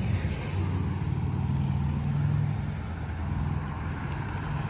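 Street traffic, with a motor vehicle's engine running close by as a steady low hum.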